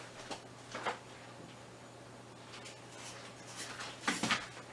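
A few faint clicks and knocks of kitchen items being handled, with the clearest ones near the start and again near the end, over a low steady hum.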